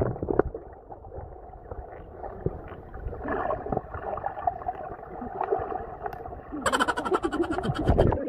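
Muffled underwater sound of a swimming pool picked up by a submerged camera: gurgling water and bubbles with scattered clicks and knocks. Near the end the camera breaks the surface and splashing water is heard, sharper and louder.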